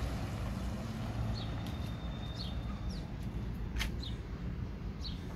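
Small birds chirping outdoors, short high calls every second or so, over a steady low rumble, with one sharp click just under four seconds in.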